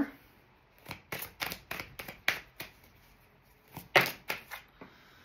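Tarot cards being handled on a table: a run of quick, sharp taps and snaps in two clusters, with a short pause between.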